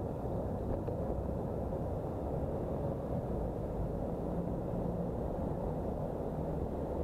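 Steady low rumble of riding noise from a camera mounted on a moving bicycle: wind on the microphone and tyres rolling on the road.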